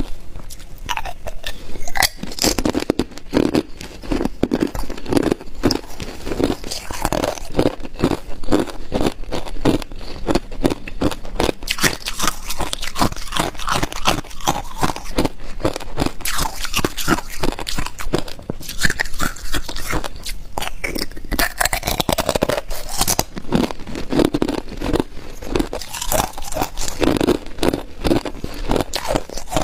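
A person biting and chewing ice, a dense, continuous run of loud crunches and cracks as the ice breaks between the teeth.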